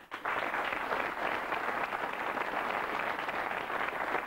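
Studio audience applauding: many people clapping together in a steady, dense patter that starts right at the beginning.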